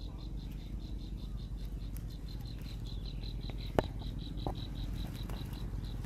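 An insect trilling in steady, even pulses, about eight a second, over a low rumble, with one sharp click near the middle.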